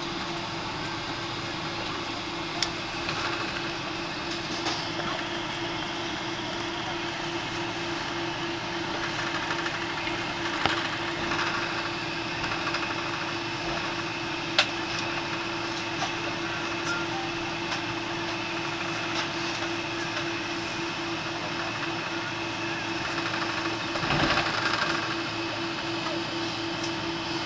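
Airliner cabin noise as the jet taxis after landing: a steady rumble and hum with a steady low tone, a few sharp clicks, and a brief swell in loudness near the end.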